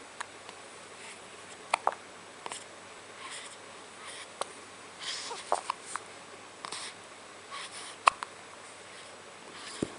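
A few short, sharp hiccups at irregular intervals, with the loudest one near the end.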